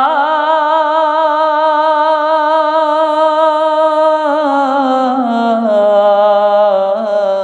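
A man's solo voice singing a Bengali Islamic song (gojol) unaccompanied, holding one long drawn-out note with vibrato that steps down in pitch a few times after about four seconds.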